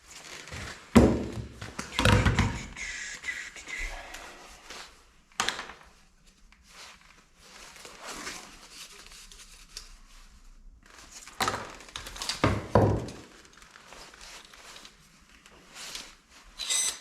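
A handful of dull thuds and knocks, as of objects being handled and set down, with a short squeak about three seconds in.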